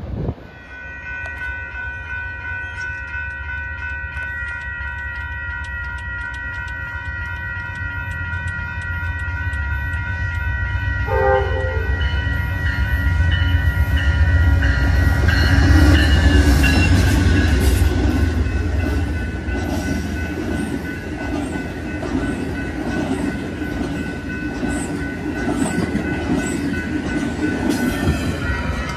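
Amtrak Cascades passenger train approaching and passing over a grade crossing. Crossing bells ring steadily and the horn gives one short blast about 11 seconds in. The train's rumble and wheel clicks build to their loudest about halfway through, then ease slightly as the cars go by.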